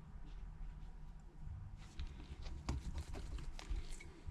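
Scattered light clicks and taps of small precision tools (screwdriver, tweezers) against an iPhone 8's metal bracket and tiny screws, irregular, over a low steady hum.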